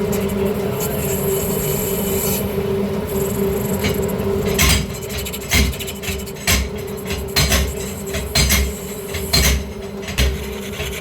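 A metal lathe running with a steady hum and hissy cutting noise for the first couple of seconds. From about four seconds in, sharp knocks with low thumps come regularly, about once a second.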